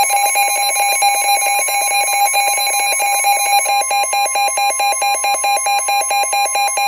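Midland NOAA weather radios sounding their warning alarm for a severe thunderstorm warning: a loud, fast pulsing beep, about five pulses a second, over the steady 1050 Hz NOAA Weather Radio warning tone.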